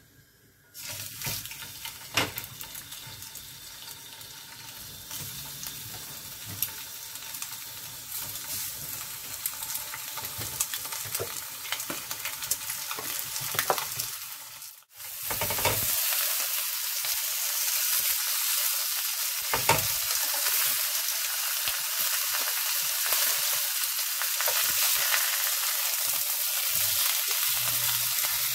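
Semi-dried eel fillets sizzling as they pan-fry in hot oil in a stainless steel pan, with a few sharp taps against the pan. The sizzle starts about a second in, cuts out briefly about halfway, and comes back louder.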